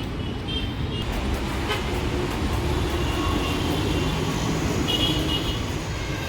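Street traffic: a steady low rumble of passing vehicles, with brief high horn toots about half a second in and again about five seconds in.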